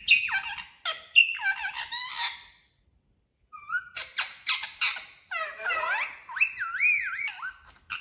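Pet parrot making high-pitched calls that glide and waver in pitch, with a short break about three seconds in.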